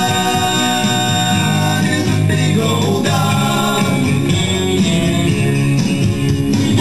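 A recorded song with guitar accompaniment and a singing voice, played for the puppets to perform to.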